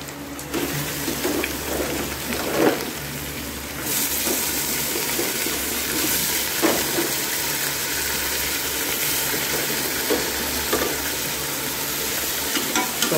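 Raw meat pieces sizzling in hot oil and fried onions in an aluminium pot, the sizzle growing louder about four seconds in as more meat is stirred in. A steel ladle knocks and scrapes against the pot a few times.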